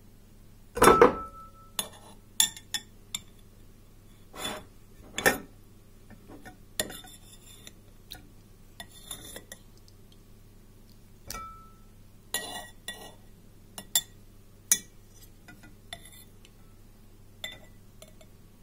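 Metal spoon clinking and knocking against a glass jar while scooping tomatoes out of their liquid, in irregular taps and clinks. The loudest knock comes about a second in, and that one and another near the middle ring on briefly like glass.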